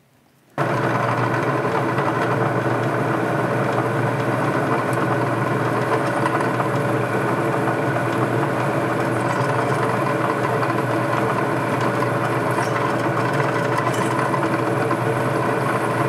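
Drill press motor running steadily as the bit drills a tiny air hole into a small sealed steel frame tube; the sound starts abruptly about half a second in.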